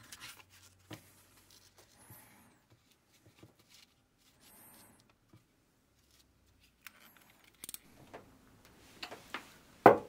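Quiet rustling and light scraping of paper cut-outs being handled and laid on a wooden panel, with scattered small clicks and two brief scraping hisses; a single sharp click near the end.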